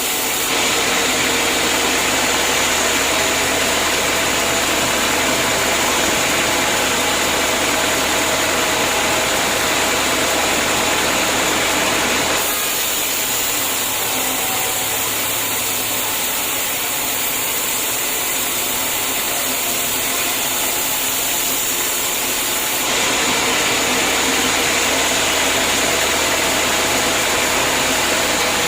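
Homemade band sawmill running and sawing through a hard acacia log, a steady loud machine noise. The tone shifts abruptly twice, about a third of the way in and again near two-thirds.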